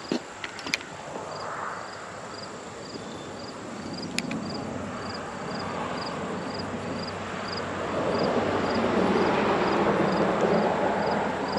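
A steady outdoor rush that swells and grows louder over the second half, with a few sharp clicks in the first second and one more about four seconds in. A faint high chirp repeats steadily about two and a half times a second.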